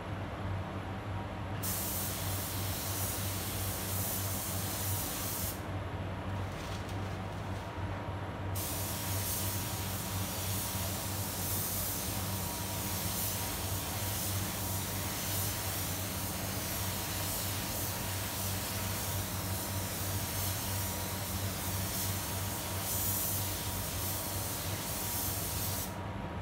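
Gravity-feed paint spray gun hissing as compressed air atomises paint onto a car's quarter panel. There is one pass of about four seconds, a pause broken by a couple of short blips, then a long unbroken spray from about eight seconds in that stops just before the end. A steady low hum runs underneath.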